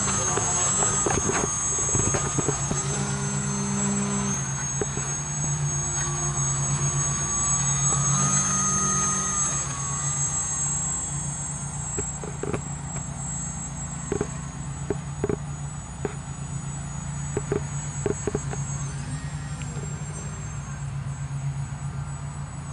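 Brushless electric motor (Scorpion SII-2208-1100KV) spinning an APC 9x4.7 propeller on a foam RC delta-wing plane, a steady buzzing whine whose pitch rises and falls with the throttle. It is loudest in the first half and grows fainter after about ten seconds, with a few short clicks later on.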